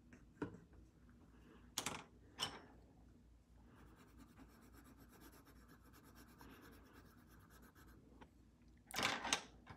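Coloured pencil shading on paper: a faint, steady scratchy scribble of quick back-and-forth strokes from about four to eight seconds in. There are two sharp knocks near two seconds and a louder handling clatter near the end.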